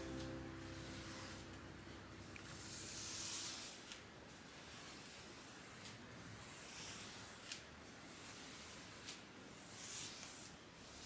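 A brush rubbing varnish across a painted canvas: a soft, faint hiss that swells and fades with each stroke, with a few light clicks between strokes.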